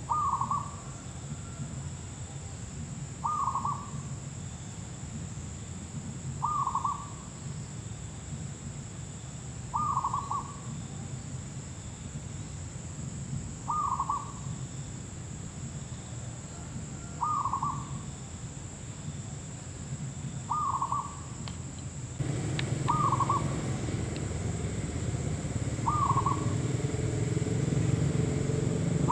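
Zebra dove calling: a short, soft trilled coo repeated about every three seconds. A steady high-pitched whine sits under it throughout, and low background noise grows louder about two-thirds of the way through.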